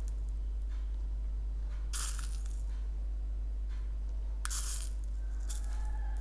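Sprinkles shaken from their container onto a milkshake: a few brief rustling rattles, the clearest about two seconds in and about four and a half seconds in, over a steady low hum.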